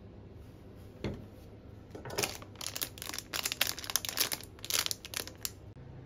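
Wrapping being crinkled and rustled by hand in quick, irregular crackles for about three and a half seconds, after a single soft knock about a second in.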